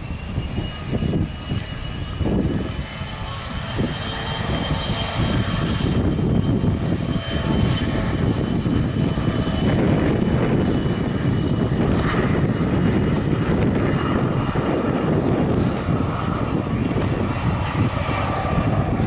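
Jet airliner engines spooling up to takeoff power. A whine climbs in pitch at the start and then holds, over a dense engine rumble that grows louder through the first half and stays loud.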